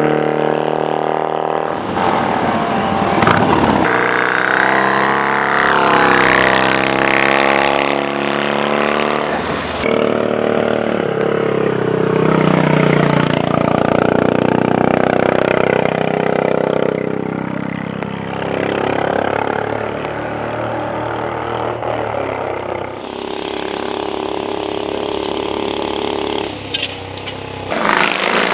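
Racing motorcycle engines revving hard and passing at speed, their pitch climbing and dropping with gear changes and sweeping in and out as bikes go by. The sound changes abruptly several times.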